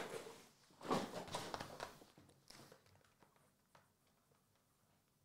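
Desk handling noises: a plastic card holder and a marker handled on a desk mat. A sharp knock comes at the start and another about a second in, then small clicks and rustles that taper off to quiet.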